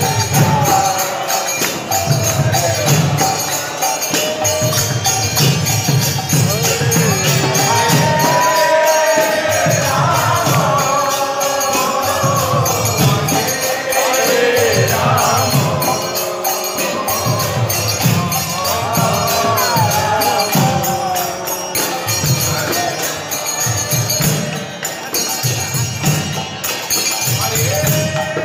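Hindu devotional kirtan: voices singing a chant in a flowing melody over mridanga drums and hand cymbals (kartals) ringing steadily.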